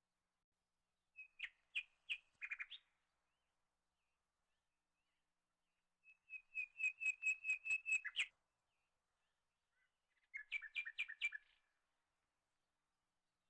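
A small bird singing: three phrases of quick repeated high chirps, the middle one the longest at about a dozen evenly spaced notes, with quiet pauses between phrases.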